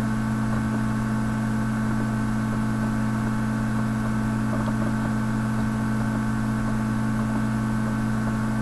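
A steady, unchanging low hum with several fainter higher tones stacked above it.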